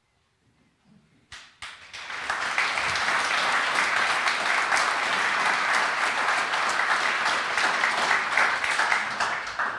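Audience applauding. A few single claps come in about a second and a half in, swell quickly into steady clapping from the crowd, and stop just before the end.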